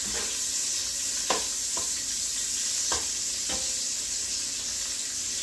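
Chopped bacon sizzling in a Dutch oven over medium-high heat, a steady frying hiss, while it is stirred, the utensil knocking against the pot four times.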